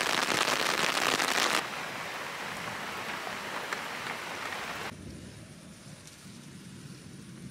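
Heavy rain pouring down, a dense, close hiss of drops that drops suddenly about a second and a half in to softer rain, and again around five seconds in to a faint, distant patter.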